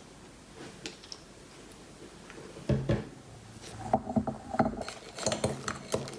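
Spoon clinking and scraping in a bowl as slime is stirred: a few faint ticks at first, then from about halfway a busier run of clinks and scrapes.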